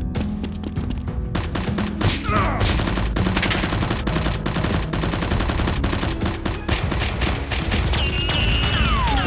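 Rapid gunfire sound effects: a few scattered shots, then from about a second and a half in a dense, sustained exchange of automatic fire, with background music beneath.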